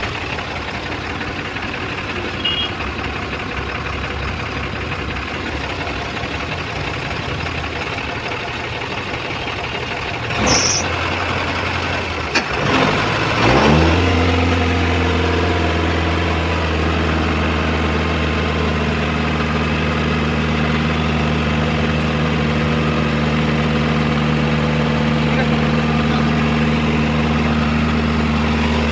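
An engine runs under general noise. About 13 seconds in, an engine spins up with a rising pitch and settles into a steady idle. A brief hiss comes about ten seconds in.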